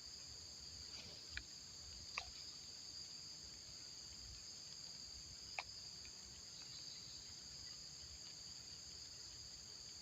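Steady high-pitched chorus of insects, even and unbroken, with three brief sharp clicks over the first six seconds.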